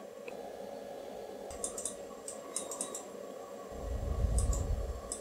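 Computer keyboard keys pressed in short clusters of quick clicks, a few at a time, as a long on-screen list is scrolled through. A low rumble swells up near the end.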